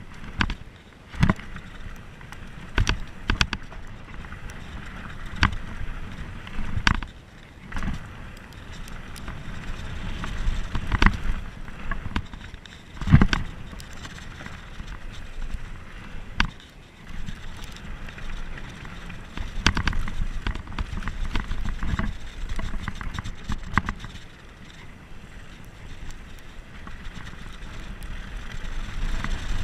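Mountain bike running fast downhill on a dry dirt trail, heard close up from a rider-mounted camera: continuous tyre and wind noise with frequent sharp knocks and rattles as the bike hits bumps, the loudest knock about halfway through.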